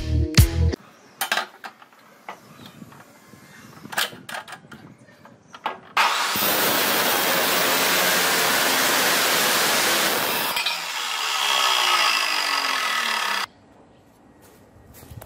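Maktec abrasive cut-off saw (chop saw) cutting through square steel tubing: a loud, steady grinding that starts about six seconds in and stops abruptly near the end.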